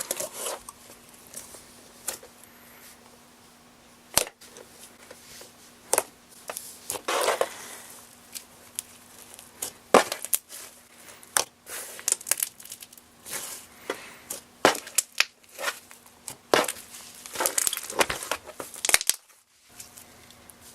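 Foam-bead slime (floam) being squished and worked by hand: irregular sharp pops from air bubbles bursting, with short stretches of crackling and crunching from the foam beads.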